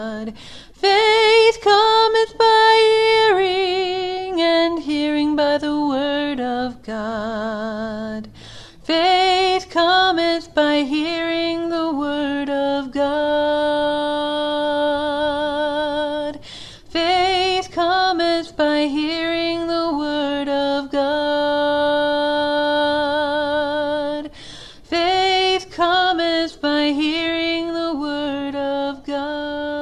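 A woman's voice singing a slow, wordless melody with vibrato on long held notes. The last note is held and fades near the end.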